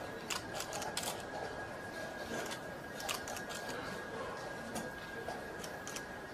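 Wooden chess pieces clicking lightly and irregularly against a wooden board and each other as a player straightens them one by one before play, over a faint murmuring hall and a steady thin high tone.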